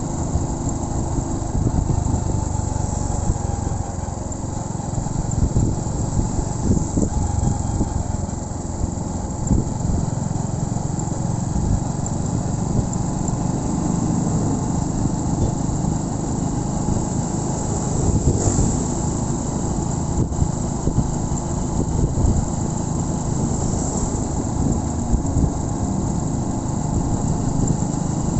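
Honda Win 100's single-cylinder four-stroke engine running steadily as the motorcycle is ridden.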